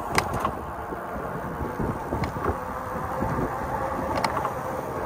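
Steady rush of wind on the microphone and rolling noise from an e-bike under way, with a few sharp clicks or rattles: two near the start, one about two seconds in and one about four seconds in.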